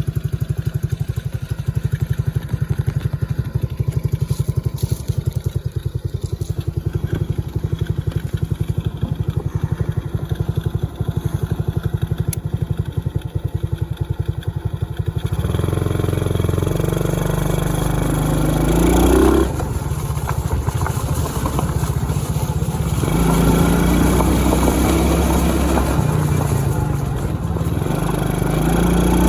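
A 110cc kids' ATV's small engine idling steadily, then, about halfway through, revving up and running under load as it is ridden, its note rising and falling with the throttle.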